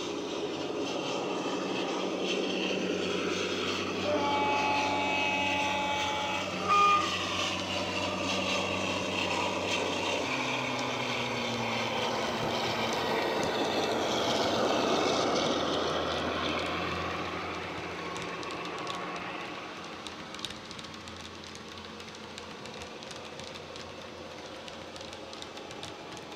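Sound decoder in a Dapol Class 52 'Western' model diesel locomotive playing the Western's twin Maybach diesel engines through an EM2 speaker as the train runs past. A horn sounds for a few seconds about four seconds in, ending in a short louder blast. The engine note changes about ten seconds in, then fades as the train moves away.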